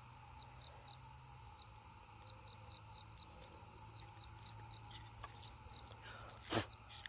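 Crickets chirping faintly at night: short high chirps, several a second, in runs. About six and a half seconds in there is one sharp puff of breath blown at the microphone, the person blowing biting bugs off.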